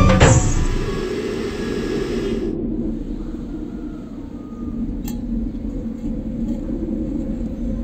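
Steady low outdoor rumble, such as wind on the microphone or distant traffic, after the last half-second of music. There is one faint tap about five seconds in.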